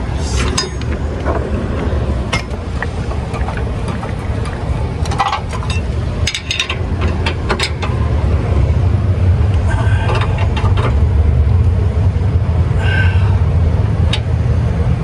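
Scattered metal clinks and clanks of a wrench working on the steel brackets of a weight distributing hitch, over a steady low rumble.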